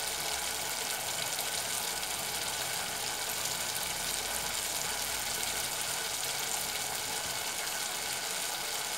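Steady sizzling hiss from food cooking in a pan on the stove, with no stirring strokes or knocks standing out.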